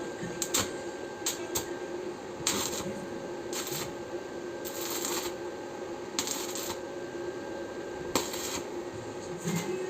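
Electric welding arc crackling in about five short bursts of under a second each, with a few sharp clicks in between, over a steady hum.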